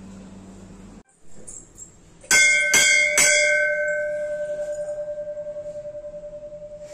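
Temple bell struck three times in quick succession, then ringing on with several steady tones that slowly fade with a fast wavering pulse.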